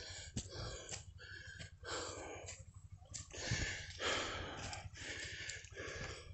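A person panting heavily, a run of noisy breaths in and out about every second.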